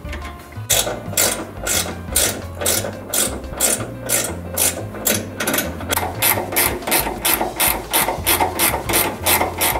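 Ratchet wrench clicking in quick, even strokes, about three a second, as it tightens the lower mounting nut of a new rear shock absorber.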